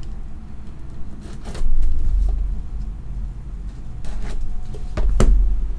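Trading cards and their packaging being handled, with a few short clicks and scrapes, over a steady low rumble.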